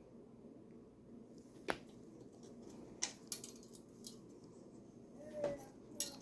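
A few sharp clicks and light taps of hands working the bike rack's bolts and fittings, spread out over a steady low hum, with a brief squeak about five seconds in.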